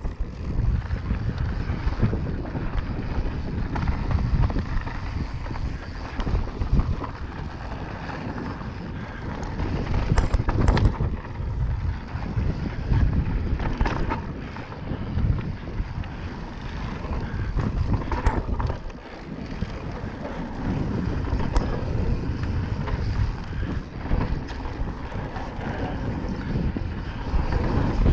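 Mountain bike ridden fast down a forest singletrack: wind buffeting the camera microphone over the rumble and rattle of tyres and bike, with a few sharp knocks as it hits bumps.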